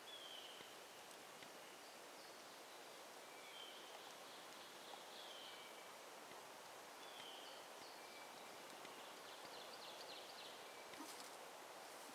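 Quiet woodland ambience with faint songbird calls: short high whistled notes every couple of seconds and a quick run of notes toward the end.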